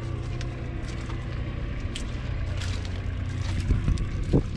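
1964 Fordson Super Major's 3.6-litre four-cylinder diesel engine running steadily, heard close up on the tractor. A few heavy thumps near the end.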